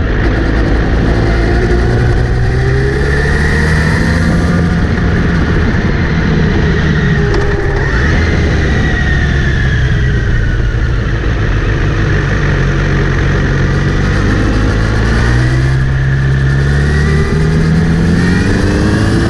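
Kawasaki Z900RS inline-four engine pulling in gear, its pitch rising and falling several times as it speeds up and eases off. A high whirring whine rises and falls along with it, which the owner traces to the front sprocket area after cleaning and relubing the chain.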